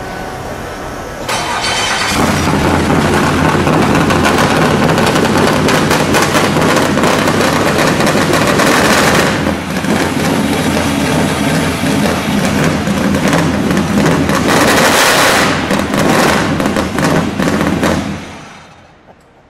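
Fuel-injected 358-cubic-inch R5P7 NASCAR small-block V8 starting up about a second in, then running loud for about sixteen seconds. It is shut off near the end and dies away.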